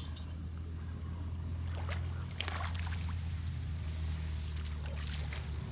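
A hooked crucian carp splashing at the water's surface as it is played on a bent rod, in two short bouts about two seconds in and near the end, over a steady low hum.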